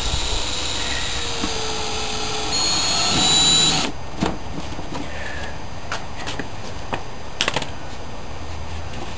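Cordless drill with a screwdriver bit running as it bores into a cardboard box, a steady motor whine that grows louder before stopping about four seconds in. A few clicks and knocks of handling follow.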